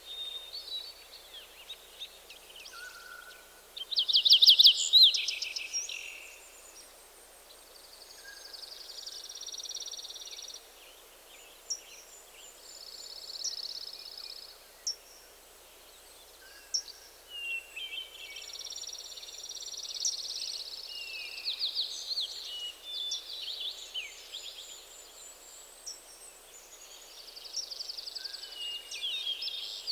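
Several songbirds singing in a forest, their songs overlapping. A loud rapid trill comes about four seconds in, and long buzzy phrases recur through the rest, over a faint steady hiss.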